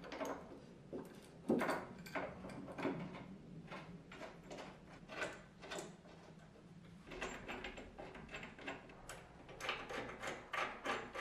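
Metal clicks and knocks from the upper suspension arm's brackets and bolts being handled and fitted by hand against the car body. The clicks come irregularly, the strongest about one and a half seconds in.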